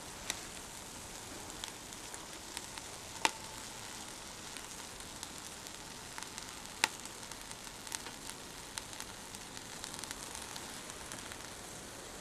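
Beef roast sizzling in a hot cast-iron Dutch oven: a steady hiss with scattered sharp crackles, the two loudest pops about three and seven seconds in.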